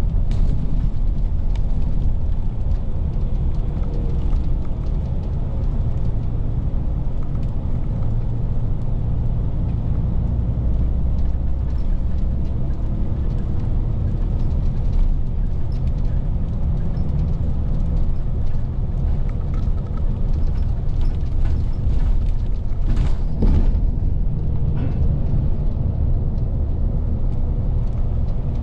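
Cabin of a moving bus: a steady low rumble of engine and road noise heard from inside the coach, with a short clatter of knocks about three-quarters of the way through.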